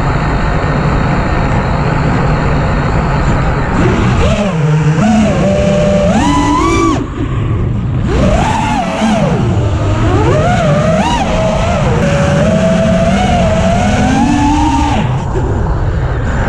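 EMAX Hawk 5 five-inch FPV quadcopter's motors and propellers whining over dense rushing noise. From about four seconds in, the whine swoops up and down in pitch again and again as the throttle changes.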